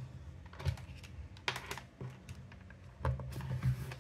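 Irregular light clicks and taps of hands handling a round plastic lamp, tilting it and touching its casing, with a few taps close together about three seconds in.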